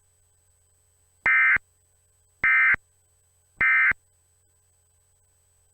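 Emergency Alert System end-of-message data tones: three short, identical bursts of two-tone digital data, a little over a second apart. They mark the end of the alert.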